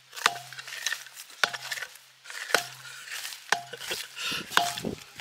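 A wooden rolling pin knocking on a board and rolling out momo wrappers, about once a second: a sharp knock, then a low rumble as the pin rolls.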